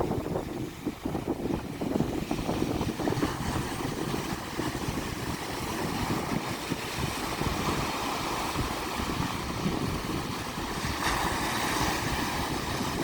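Black Sea waves washing onto the shore, with wind rumbling on the microphone; the wash swells into a louder hiss about eleven seconds in.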